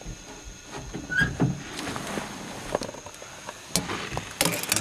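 Handling and movement noise as the camera is moved around inside the truck cab: scattered light knocks and rustles, with a cluster of sharp clicks near the end. A faint steady high tone sits underneath.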